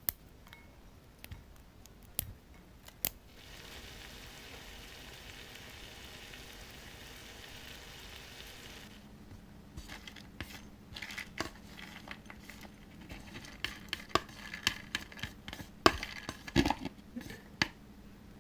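Kitchen handling sounds: a few sharp clicks, then a steady hiss for about five seconds, then a run of irregular clinks and knocks of utensils, glass and dishes over a low hum.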